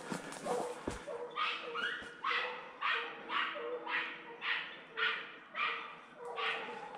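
Jagdterrier barking steadily, about two barks a second, starting about a second in: a hunting dog giving tongue on the trail of wild boar.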